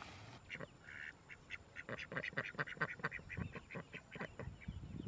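A duck quacking in a rapid run of short calls, with low thuds underneath that are heaviest near the end.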